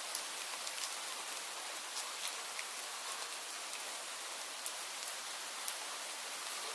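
Steady outdoor ambience: an even, soft hiss with scattered light ticks, no birdsong standing out.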